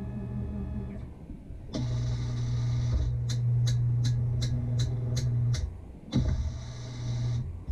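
Tormach slant-bed CNC lathe running, with its spindle and drive humming in a steady tone that drops, then steps up louder as the tool feeds. In the middle comes a quick run of about eight sharp ticks, and the hum dips briefly and surges back near the end.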